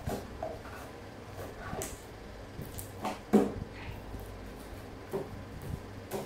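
Scattered knocks and light clatter of a plastic tub and other things handled on a tabletop, the loudest knock a little over three seconds in, over a low steady hum.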